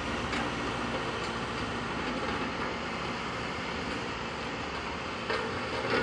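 Road roller's diesel engine running steadily as the machine rolls over loose gravel, a continuous low drone with rumble. A few sharp knocks near the end.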